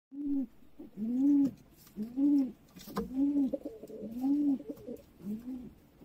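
Domestic pigeons cooing: a low, rounded coo repeated about once a second, with a single sharp click about halfway through.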